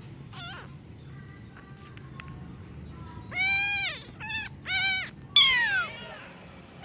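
Kitten meowing as it calls for its mother cat. A faint call near the start, then after a pause a run of four high-pitched meows, the last one the loudest and falling in pitch.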